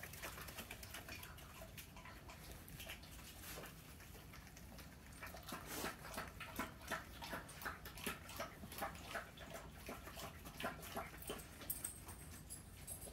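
Faint clicking and pattering of dogs' claws on a concrete floor as they move about, growing more frequent and a little louder about halfway through.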